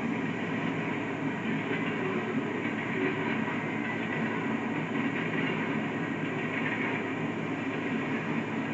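A coal train's hopper cars rolling past: a steady noise of steel wheels running on the rails.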